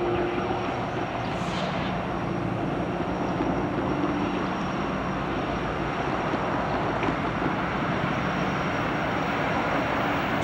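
Norfolk Southern diesel-electric freight locomotives running as they roll slowly toward the camera: a steady engine rumble with a faint whine that comes and goes in the first few seconds.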